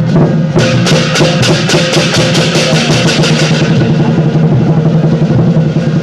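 Lion dance percussion band playing: a big drum beating steadily under clashing cymbals. About half a second in, the cymbals strike in a fast even run of about four or five crashes a second, then fade out after a few seconds while the drumming goes on.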